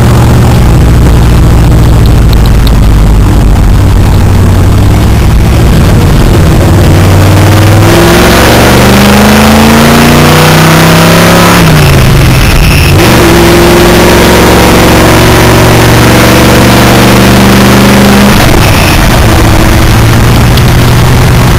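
1978 GMC pickup engine heard from inside the cab, holding a steady speed and then pulling hard from about 8 seconds in, its pitch climbing. It drops sharply at a gear change near 12 seconds, climbs again, then falls back as the throttle eases near 18 seconds, with wind and road noise rising with speed.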